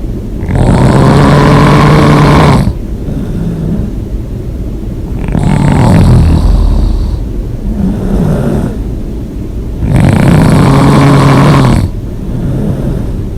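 A person snoring hard with the mouth open: three loud rasping snores, each about two seconds long and four to five seconds apart, with quieter breathing between them.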